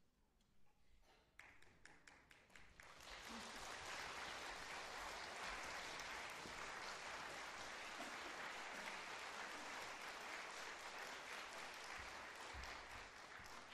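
Audience applause in a concert hall: a few scattered claps that swell into steady applause about three seconds in, then begin to thin out near the end.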